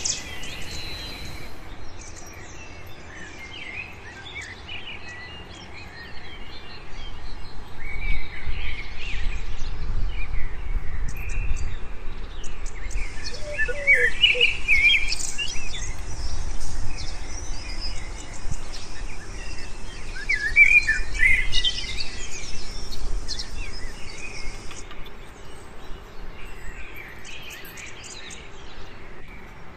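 Birds chirping and calling in the background, with short scattered chirps throughout, a steady high hiss through the middle stretch and a low rumble underneath.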